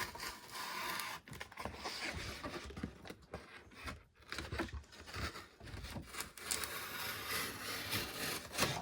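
Knife scraping and cutting at a cardboard toy box and its packaging: a rough, scratchy rubbing that comes and goes in strokes, with a short break about four seconds in.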